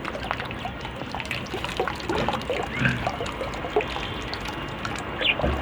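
Small birds bathing, splashing and flicking water in many short, irregular splashes over a steady trickle of water.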